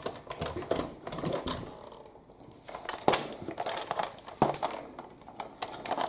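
Plastic toy stunt car being picked up and turned in the hands: scattered clicks, taps and light rattles of hard plastic.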